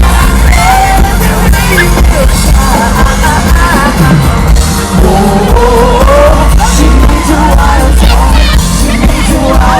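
A live pop band playing loudly, with a lead vocal singing over heavy bass and drums and an audience yelling along.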